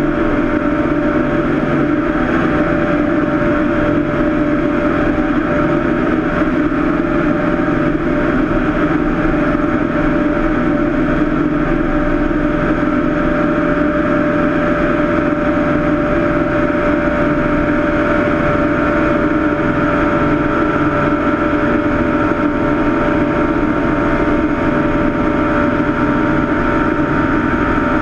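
Cessna 162 Skycatcher's Continental O-200 four-cylinder engine and propeller running steadily, a constant drone with no change in pitch.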